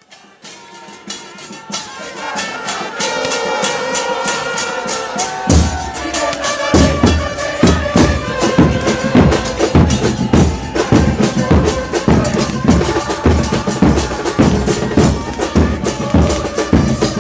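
Argentine football terrace chant: a crowd of supporters singing. About five and a half seconds in, a steady beat of bass drums (bombos) joins them.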